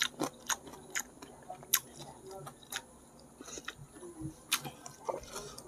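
Close-up eating sounds: chewing and lip smacks, heard as scattered sharp clicks and wet snaps, as goat-head curry is eaten by hand.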